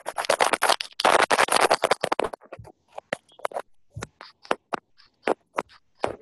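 Scratchy, crackling disturbance on the video-call audio: about two seconds of dense scratching noise, then scattered short crackles and clicks.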